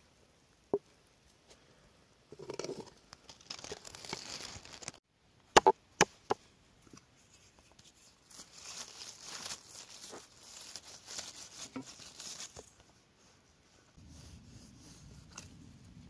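Soft yeast dough scraped and peeling out of an enamel bowl onto a floured wooden board, then three sharp knocks about five and a half seconds in. A few seconds of soft rustling and patting follow as the dough is pressed flat by hand.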